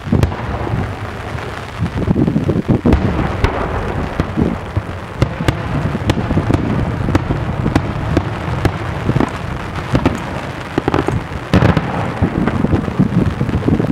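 Daytime aerial fireworks: shells bursting in quick succession overhead, a dense run of sharp bangs and cracks over a continuous rumble. The reports come thicker near the end as a cluster of small bursts goes off together.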